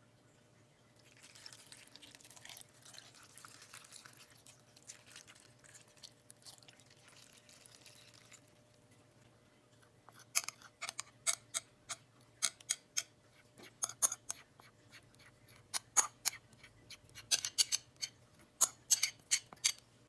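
Stock poured into a wide pan of raw ingredients, a faint hiss; then, from about ten seconds in, a metal spoon clinking and scraping against a glass bowl in many quick, irregular taps as thick chili sauce is scraped out onto the food.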